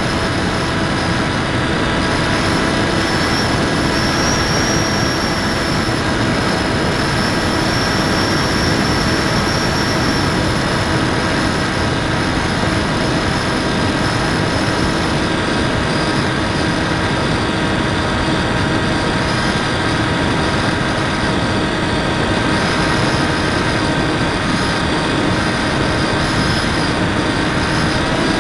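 Electric motor and propeller of an FPV Raptor model plane running at a steady cruise: a constant whine with several held tones over rushing wind, picked up by the camera on board the plane.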